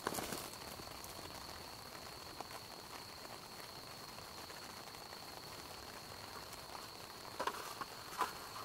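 Insect trilling on one steady high note, with two short clicks near the end.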